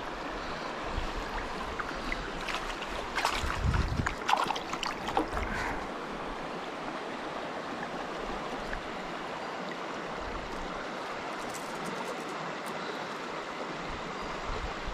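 River current flowing steadily over a shallow bed, with a few brief handling sounds and splashes about three to five seconds in.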